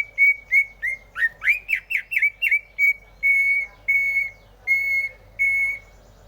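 Cucak hijau (green leafbird) singing a phrase of clear whistles: short notes, then a quick run of slurred notes rising and falling, then four longer steady whistles on one pitch that stop near the end.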